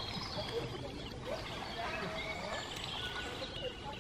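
Outdoor ambience of many small birds chirping, mixed with a murmur of people's voices and a steady low rumble.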